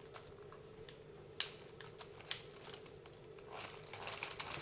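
Light clicks and taps of a small hobby-grade RC car's parts being handled: a few single clicks about a second apart, then a quicker run of clicks near the end. A faint steady hum sits underneath.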